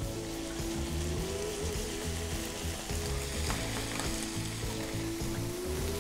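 Potato cubes and diced bacon sizzling as they fry in a pan, with a steady hiss, over background music.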